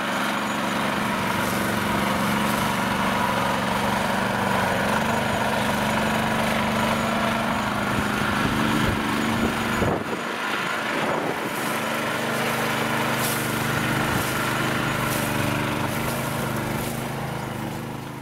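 Engine of a small off-road vehicle running steadily under load as it drives across the bog, with a brief dip about ten seconds in, then fading out at the very end.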